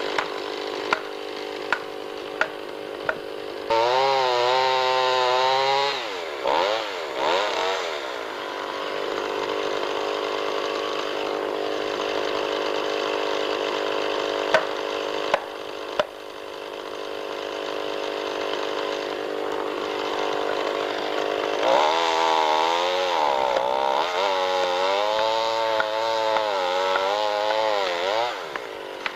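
Two-stroke chainsaw running at high revs as it saws the back cut of a large tree held open with felling wedges. Its pitch wavers up and down as the chain loads in the cut, briefly about four seconds in and again through most of the last seven seconds. A few sharp clicks come near the start and about fifteen seconds in.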